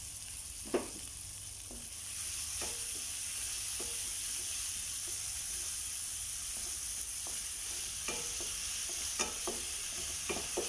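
Chopped onion, ginger, garlic and green chilli sizzling in hot oil in a pan as they are fried toward brown, with a spatula stirring and knocking against the pan now and then. The sizzle grows louder about two seconds in; the sharpest knock comes just under a second in.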